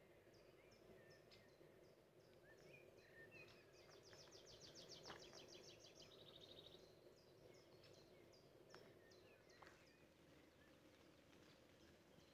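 Faint songbirds calling: repeated short, high chirps, with a fast trill about four seconds in and a buzzy note just after, over very quiet background noise.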